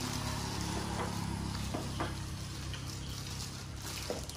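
Eating sounds at a table: a few sharp clinks of chopsticks and spoons against ceramic bowls, about two seconds in and again near the end, over a steady low hum.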